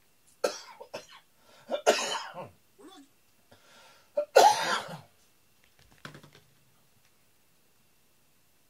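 A cat hacking and retching. There are three harsh coughing bursts in the first five seconds, the loudest a little past four seconds in, then a weaker one near six seconds. It is the kind of retching a cat does after a recent meal.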